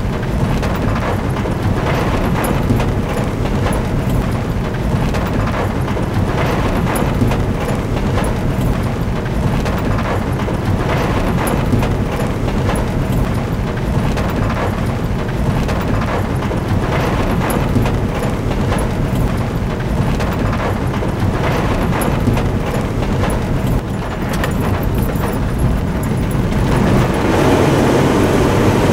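Inside a car driving over a rough dirt road: the engine runs under steady road noise with frequent knocks and rattles from the body and suspension. Near the end a denser hiss joins in, heavy rain on the car.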